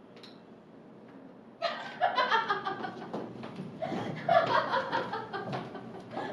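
Laughter breaks out suddenly about a second and a half in and goes on in loud bursts.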